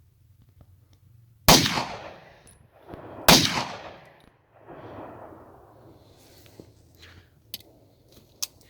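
Two shots from a Chinese 30 bore (7.62×25 mm Tokarev) pistol, about two seconds apart, each followed by a long echoing tail.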